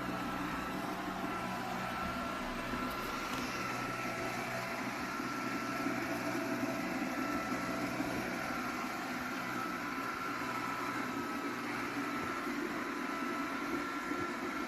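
Lubluelu L20 robot vacuum-mop running steadily while cleaning: a constant motor hum with a thin steady whine.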